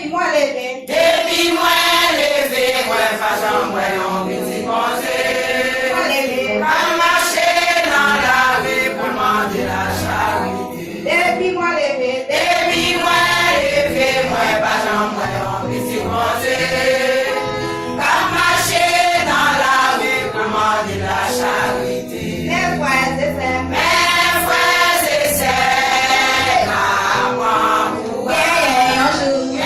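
A church choir singing a hymn in long phrases with short breaks between them, over steady low accompanying notes.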